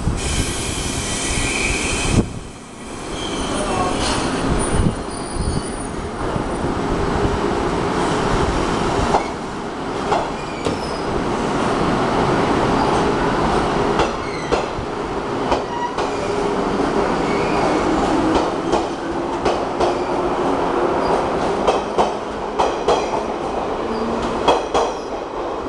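A JR 485 series electric multiple unit pulls out of the station and gathers speed, its running gear giving a steady rumble and motor hum. Sharp wheel clicks over the rail joints begin about a third of the way in and come more and more often as it speeds up. A high-pitched sound lasts about two seconds at the start.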